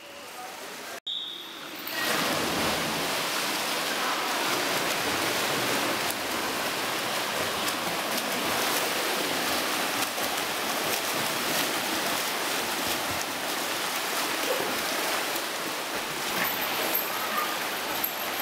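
Several swimmers sprinting front crawl, a steady rush of splashing, churning water echoing in an indoor pool hall.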